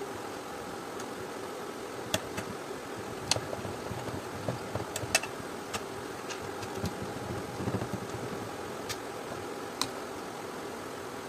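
Steady background hum, with scattered light clicks and taps as a screwdriver and the cord wires are handled at the steam iron's cord terminal.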